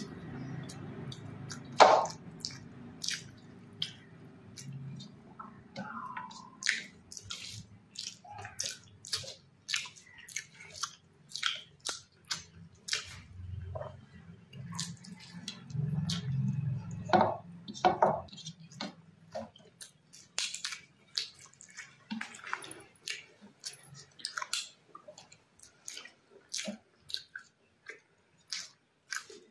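Close-miked eating sounds from a mouthful of rice with dal and curry: wet chewing and lip smacking, a quick irregular run of sticky clicks and smacks.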